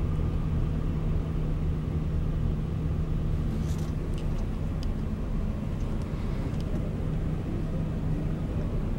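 Volvo B12R bus's rear-mounted 12-litre straight-six diesel idling with a steady low drone, heard from inside the passenger cabin.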